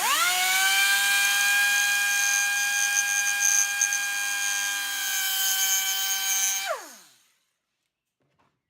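Die grinder spinning up with a rising whine, running at a steady pitch for about six seconds, then winding down to a stop.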